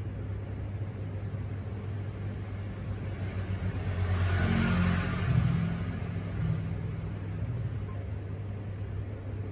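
Low steady rumble of background road traffic, with a vehicle passing and growing louder for a couple of seconds around the middle.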